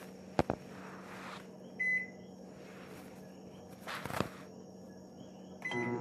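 Microwave oven keypad beeping as its buttons are pressed: a couple of sharp clicks, a short high beep about two seconds in and another near the end. Right after the second beep the oven starts running with a steady electrical hum.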